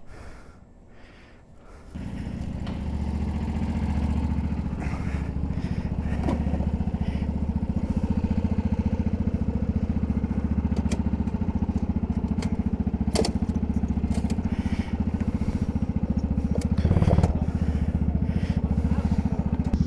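Go-kart engine running steadily with rapid, even firing, starting about two seconds in, with a few short clicks and knocks over it.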